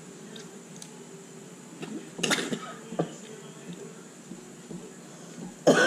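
Spoon and fork clicking and scraping on plates during a meal, with a louder noisy scrape about two seconds in. A cough breaks in right at the end.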